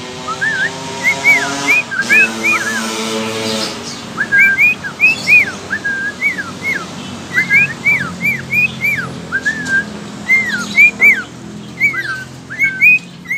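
A budgerigar whistling a run of short, clear notes, each rising and then falling in pitch, repeated in quick phrases with a brief pause partway through.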